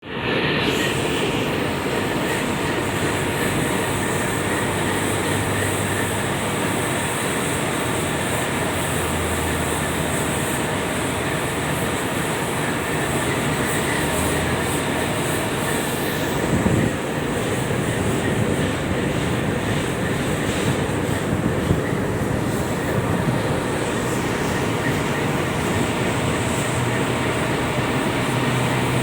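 Tugboat's twin main diesel engines running, a steady loud mechanical drone and rumble heard aboard the vessel.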